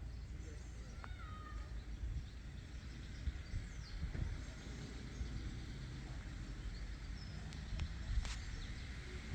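Outdoor ambience of steady low wind rumble with scattered bird calls, including a short call about a second in that drops in pitch and then holds.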